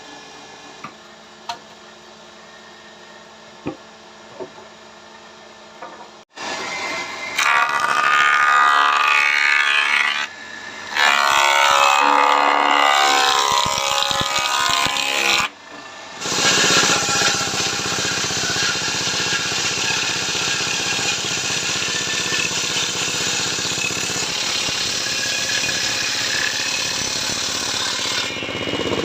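A few light knocks, then from about six seconds in a power tool working wood, running loud in two short stretches and then steadily for the rest.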